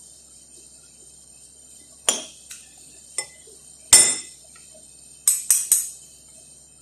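Metal cutlery clinking against a plate, about seven sharp ringing clinks, the loudest about four seconds in and a quick run of three near the end. A steady high cricket chirr runs underneath.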